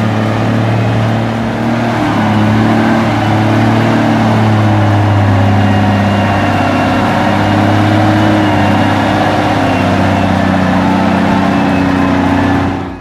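Heavy vehicle engine running steadily under load, its pitch rising and falling slightly.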